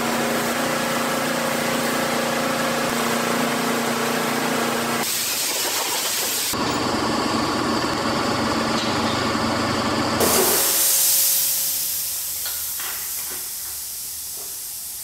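Pressure washer running, its motor and pump humming under the hiss of the water jet spraying onto the tractor. The spray changes several times, grows loudest about two-thirds through, then fades over the last few seconds with a few faint knocks.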